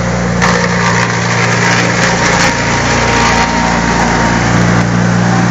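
Wood chipper's engine running loud and steady at close range.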